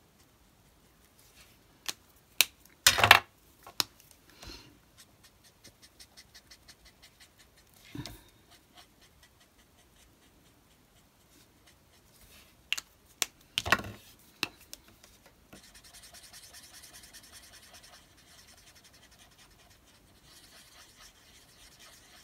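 Alcohol marker nib scratching on a small piece of card as it is shaded, with scattered sharp clicks and knocks, the loudest about three seconds in and another cluster a little past the middle.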